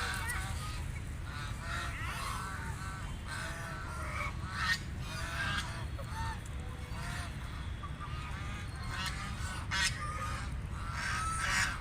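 A flock of ducks quacking, with many short calls overlapping and following one another throughout, over a steady low rumble.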